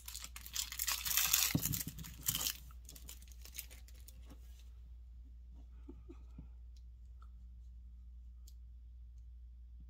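Thin clear plastic wrapper crinkling and tearing as it is peeled off a tiny eraser, dense for about two and a half seconds and then tapering off. Later there are only a few faint clicks from the small plastic pieces being handled.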